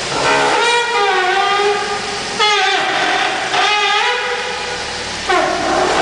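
Car steering squealing as the steering wheel is turned: four drawn-out, high-pitched squeals, each dipping in pitch at the start and then holding steady.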